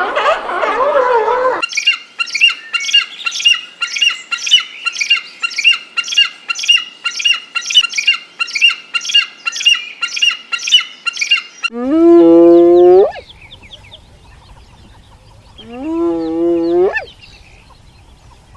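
A bird squawking rapidly and repeatedly, about two sharp calls a second, for about ten seconds. Then come two long, loud farm-animal calls a few seconds apart, each rising at the start and then held.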